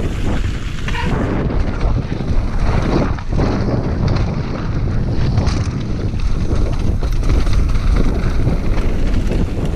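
Wind buffeting the camera microphone on a fast mountain-bike descent, with tyres rolling over a rough dirt trail and scattered knocks and rattles from bumps.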